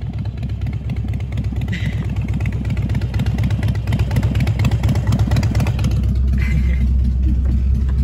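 Harley-Davidson V-twin motorcycle engine running at low speed on a loose dirt road, growing steadily louder as the bike approaches.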